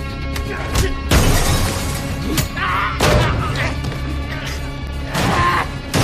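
Action-film fight soundtrack: score music running under punch and crash sound effects, with sharp hits about a second in, a couple more around two to three seconds, and a heavy crash near the end as a body smashes into machines.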